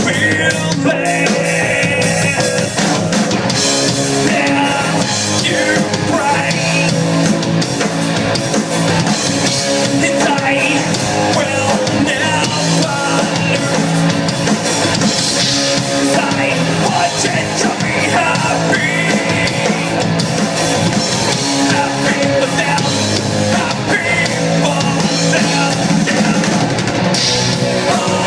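A live rock band playing: drum kit and electric guitar, loud and continuous.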